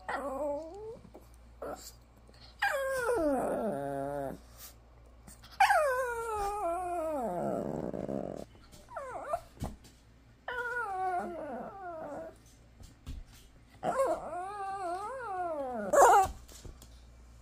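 Shih Tzu 'talking': five drawn-out whining calls, most sliding down in pitch, the last wavering up and down.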